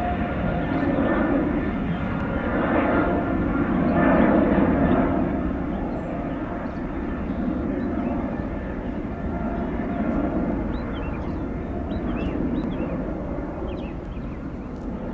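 Jet airliner engines, a steady rush with a fan whine, slowly fading as the aircraft moves away.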